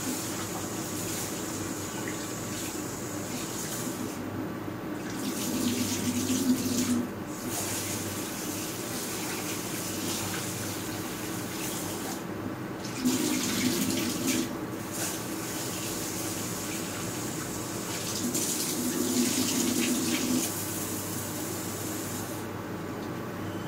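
Tap water running and splashing into a pot as rice is washed by hand. It gets louder in three spells of a few seconds each.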